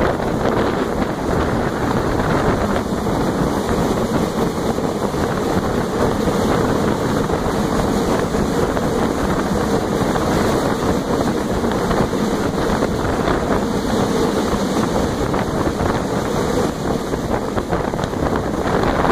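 Steady rumble of a moving freight train heard from aboard it, with wind buffeting the microphone.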